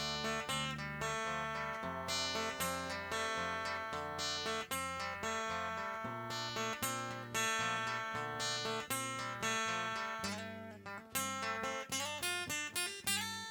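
Instrumental acoustic guitar music: plucked and strummed chords with a melody line, the notes coming quicker near the end.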